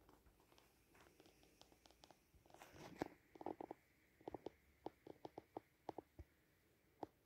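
Near silence: faint room tone with scattered small irregular clicks, more of them from about three seconds in, and a faint steady high tone through the middle.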